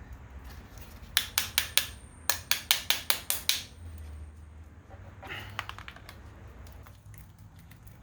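A run of sharp tapping knocks on a hard part, four and then about eight in quick succession, then a few lighter taps about five seconds in.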